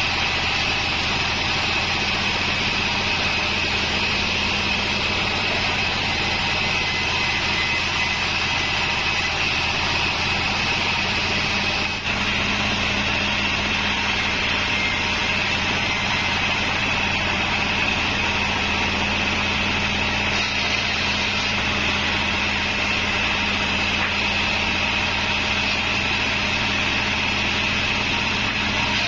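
Bandsaw36 band sawmill running steadily: a constant high whine over a low hum, with a momentary break about twelve seconds in.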